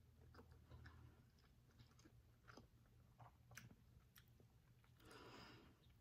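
Faint mouth sounds of a person chewing a bite of microwaved chicken: scattered soft clicks and smacks, with a short soft hiss about five seconds in.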